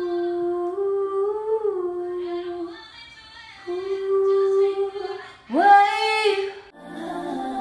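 A woman hums a wordless melody in long held notes, pauses for about a second, then swoops sharply up into a loud note. Near the end the sound changes to a hissier recording of singing.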